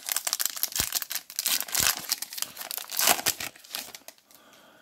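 Foil trading-card pack wrapper crinkling and tearing as it is ripped open by hand, a dense run of irregular rustling that dies away about three and a half seconds in.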